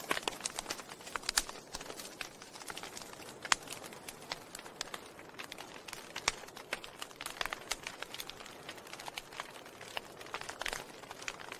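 Wood fire burning in a fireplace, crackling with irregular sharp pops and snaps over a soft steady hiss, with one louder pop about three and a half seconds in.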